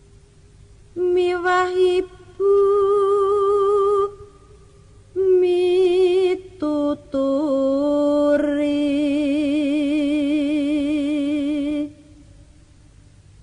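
A single voice singing a slow Javanese tembang with no accompaniment, in long drawn-out notes with wide vibrato. Short phrases are broken by pauses, and a final note is held for about four seconds.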